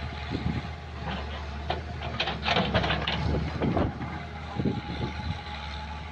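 Excavator's diesel engine running steadily, with irregular clanks and a louder scraping, hissing stretch about two to three seconds in as the machine works.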